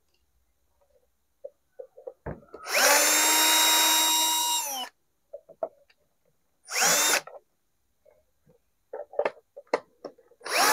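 Electric screwdriver motor whirring in three runs: one of about two seconds, a short burst that spins up around the middle, and another starting near the end. The bit is failing to catch in a screw of the mixer's housing. Light handling clicks and knocks come between the runs.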